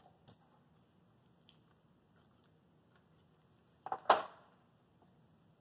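A quiet room, then about four seconds in a brief, loud rustle and clatter as bandage supplies are handled on the table.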